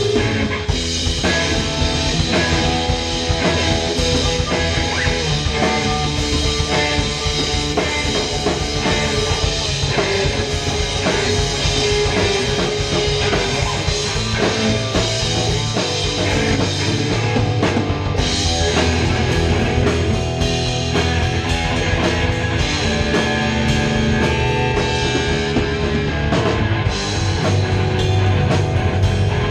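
Rock band playing live together: distorted electric guitars over a drum kit with crashing cymbals, loud and continuous, with no singing.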